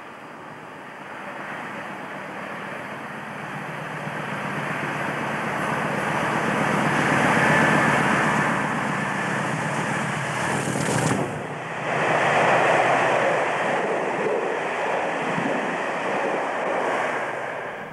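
English Electric Class 50 diesel locomotive hauling passenger coaches at speed. Its 16-cylinder engine note grows steadily louder as it approaches. About eleven seconds in the sound dips briefly as the locomotive passes beneath, then the coaches follow with a continuous rush of wheels and air.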